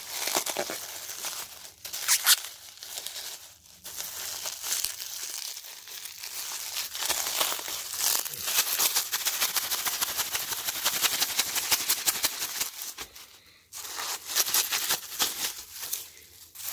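Plastic bubble wrap crinkling and crackling as it is pulled apart and unwrapped by hand, with brief lulls about four seconds in and again near the end.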